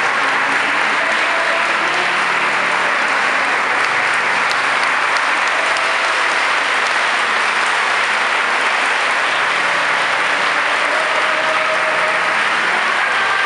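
Sustained applause from a large crowd, loud and steady without a break.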